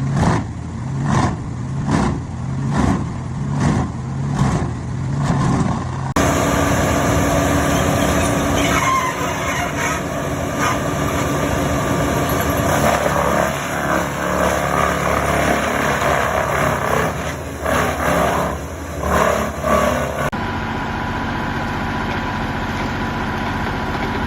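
Large industrial wood chipper running under load. Its sound throbs about once a second, then turns to a dense, continuous chipping racket with scattered knocks about six seconds in, and settles to a steadier engine drone near the end.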